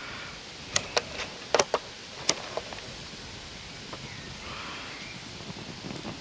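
Handling of a disposable charcoal grill's foil tray and spirit-soaked lighting paper: a handful of sharp crinkling clicks in the first couple of seconds, then faint steady outdoor noise.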